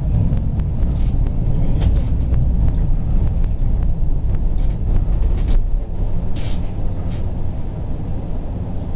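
Tram running along its rails, heard from on board: a steady low rumble with scattered clicks and knocks from the wheels on the track, easing a little about six seconds in.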